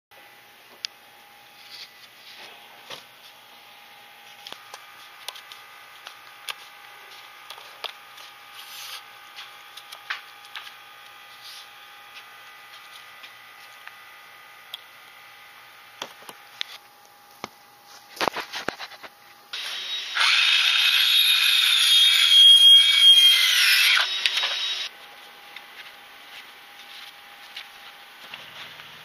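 Scattered light clicks and knocks of hand work on wooden trim boards, then, about twenty seconds in, a power tool runs loud and steady for about five seconds and winds down.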